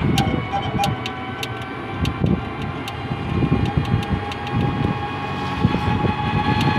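A road vehicle driving along, heard from on board: engine and road noise with a steady high whine over an uneven rumbling rattle, and scattered sharp clicks.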